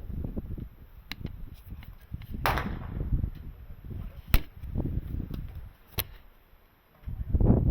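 Three sharp snaps, spaced about one and a half to two seconds apart, from airsoft guns firing single shots, over a low rumble.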